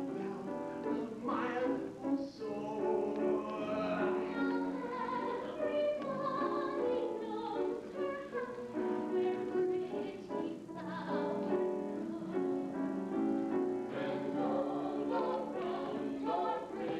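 Operetta singing with piano and keyboard accompaniment: sung voices carry a melody over the steady accompaniment.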